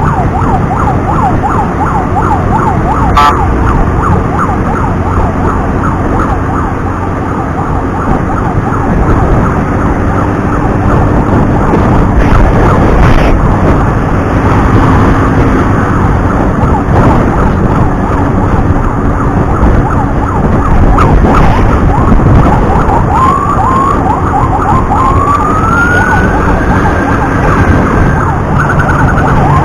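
Emergency siren in a fast yelping warble, switching to a rising wail that holds high near the end before the yelp returns, over a loud steady rumble of traffic and wind.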